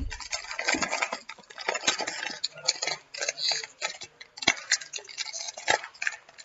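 Crinkling and tearing of a plastic trading-card pack wrapper as it is pulled open by hand: an irregular run of crackles and sharp clicks.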